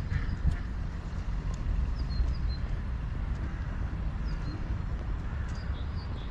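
Open-air park ambience: a steady low rumble, with a few short, faint high bird chirps scattered through it.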